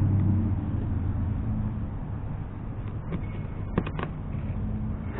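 Low, steady motor vehicle engine rumble that eases slightly, with a few light clicks about three to four seconds in.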